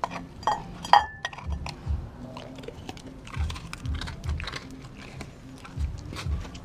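A German-shepherd-type dog chewing and smacking on raw food close to the microphone, with many small wet clicks and a steady chewing rhythm. About a second in, its teeth clink against the glass bowl, which rings briefly.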